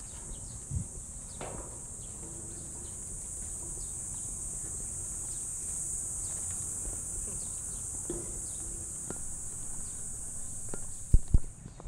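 A steady, high-pitched insect chorus from the trees, which cuts off abruptly just before the end, with faint footsteps. Two sharp knocks come about eleven seconds in.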